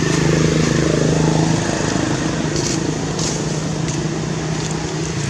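An engine running steadily with a low, even hum, a little louder in the first second or so.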